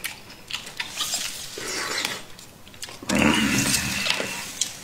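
Tableware clatter as plastic hotpot boxes are shifted and knocked on a table: scattered clicks and knocks, then a louder scraping clatter with a ringing tone lasting about a second, about three seconds in.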